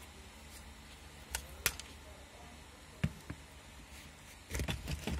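Scattered sharp clicks and light knocks of a Renault Sandero's plastic interior parts being handled, a few single clicks, then a short busy cluster of clicking and knocking near the end.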